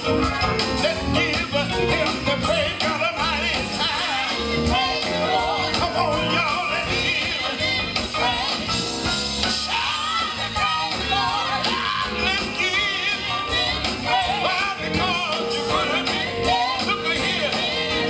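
Live gospel music: a women's vocal group singing, backed by a band with electric bass, drums and keyboard.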